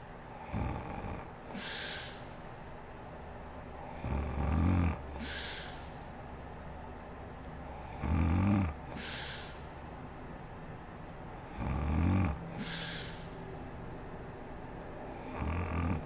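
A woman snoring in her sleep: a low snore about every four seconds, each followed by a breathy exhale.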